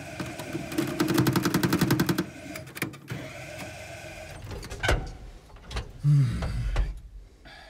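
A fuel truck's petrol engine cranking and sputtering back to life after running dry, fresh fuel just put in: a fast rhythmic chatter for about a second and a half, then uneven running with a loud low burst about six seconds in.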